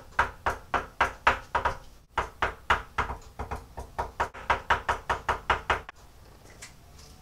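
A pen tip tapping dots onto a sheet of paper on a desk, a steady run of about three to four sharp taps a second that stops about six seconds in.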